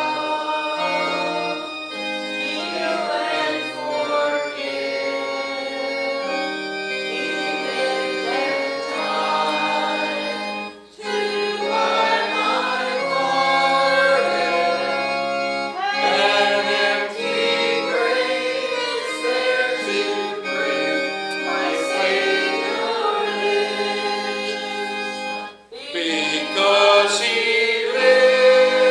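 Church congregation singing a hymn together with instrumental accompaniment, sustained chords with two brief breaks between lines.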